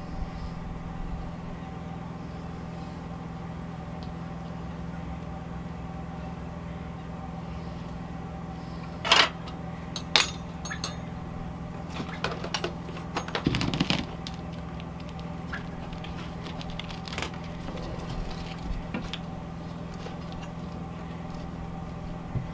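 Scattered metallic clinks and taps from handling a stainless steel stovepipe and its fittings, loudest about nine and ten seconds in, over a steady hum.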